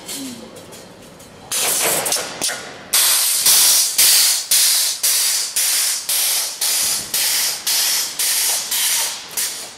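Automatic wire mesh resistance welding machine cycling: its row of pneumatic welding heads gives sharp hissing air blasts, about two a second, one with each cross-wire weld stroke. The hissing is irregular at first and settles into the steady rhythm about three seconds in.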